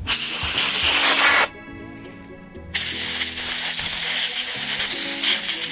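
Canned compressed air (air duster) spraying in two long bursts to blow dirt out of the crevices of a shotgun's action. It hisses loudly, stops for about a second shortly after the start, then sprays again. Soft background music plays underneath.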